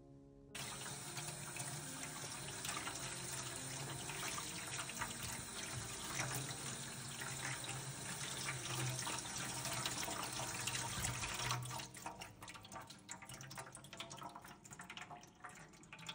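Water from a tap pouring onto wisteria petals in a woven bamboo sieve as they are rinsed and stirred by hand. The flow starts about half a second in and stops about 12 seconds in, leaving water dripping and trickling through the basket.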